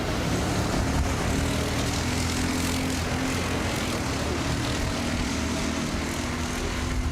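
Drag racing car engine running with a steady low drone.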